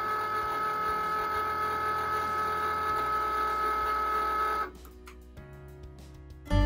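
Cricut Maker cutting machine's motors whirring with a steady high-pitched whine that cuts off abruptly about four and a half seconds in.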